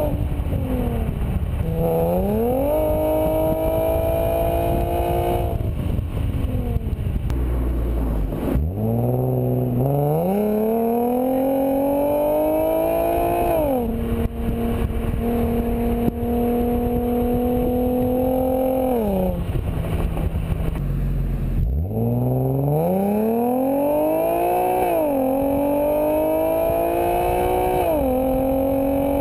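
2008 Infiniti G37S's 3.7-litre V6 through Stillen high-flow catalytic converters and a Stillen cat-back exhaust, pulling up through the gears: the exhaust note climbs in pitch and drops back at each upshift. In between there is a long spell of steady cruising, and twice the pitch falls away as the car slows before it accelerates again.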